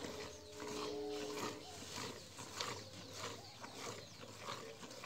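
Milk squirting into a steel bucket in quick rhythmic streams as a cow is milked by hand. A steady held tone sounds for about a second near the start.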